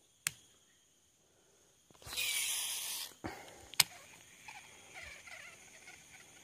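Fishing reel during a cast: a click, then about a second of high whirring hiss as the spool spins and line pays out, then two sharp clicks, the loudest near the end, as the reel is engaged.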